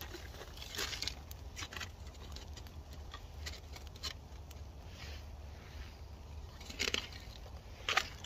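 Faint scattered rustles and light clicks of hands loading a grilled cheese sandwich into a Ridge Monkey sandwich toaster, over a low steady rumble. A couple of slightly louder clicks come near the end.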